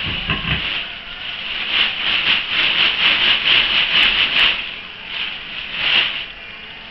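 Plastic bags crinkling and rustling as they are grabbed, pulled and shaken, in quick uneven rustles that are loudest in the middle and again about six seconds in. A dull thump at the very start.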